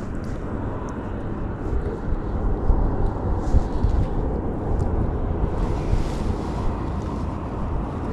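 Wind buffeting the microphone out on the open ice: a steady, uneven low rumble with no clear pitch.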